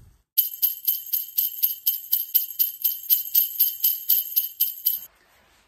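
Jingle bells shaken in a steady rhythm, about four shakes a second, stopping abruptly near the end.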